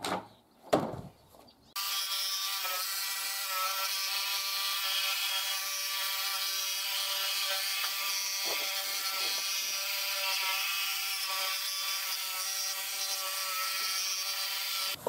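Jigsaw cutting a plastic fascia board along the profile shape of the roofing panels, running steadily at one speed. It starts about two seconds in, after a few light knocks, and stops just before the end.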